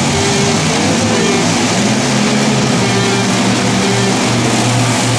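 Rock music with guitar laid over the steady running of a monster truck's engine.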